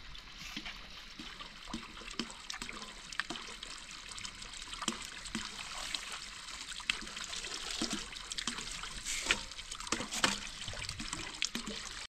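Water trickling steadily, with many small splashes and drips scattered through it.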